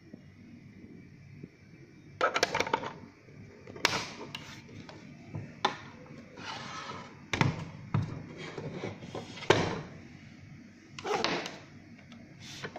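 Plastic digital weighing scale being handled and turned over: irregular knocks, clicks and short scraping rustles of its plastic housing against hands and the table.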